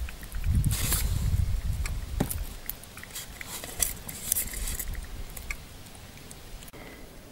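Close handling sounds of hands hooking a small live baitfish onto a pike float rig: rustling and small sharp clicks of fingers, fishing line and a metal clip, over a low rumble in the first two seconds. The clicks thin out after about five seconds.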